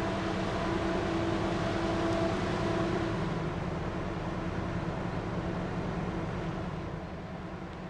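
Steady hum of a passing cruise ship's engines and machinery, a few droning tones over a noisy rumble. The tones fade a few seconds in, and the sound eases off slightly toward the end as the ship draws away.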